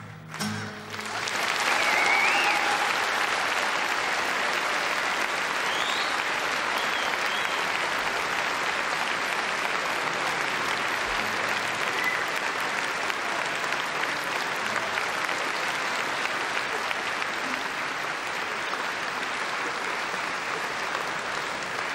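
Concert audience applauding steadily at the end of a song, starting about a second in, with a couple of short whistles about two and six seconds in.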